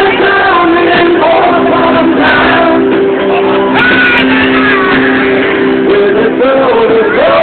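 Music with singing over held instrument notes.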